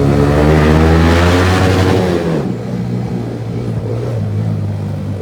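Yamaha MT-15 motorcycle with a loud aftermarket exhaust accelerating hard, the engine note climbing for about two seconds, then dropping back as the throttle eases to a steadier, lower run.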